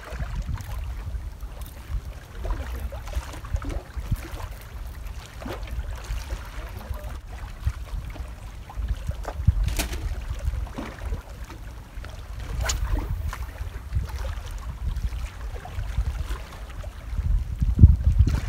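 Wind buffeting the microphone as a low, gusty rumble, with a couple of sharp clicks near the middle and a stronger gust near the end.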